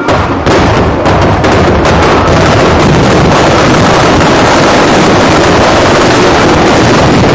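Firecrackers packed into a burning Dussehra Ravana effigy going off. A few sharp bangs come in the first second, then they run together into a loud, dense, continuous crackling barrage.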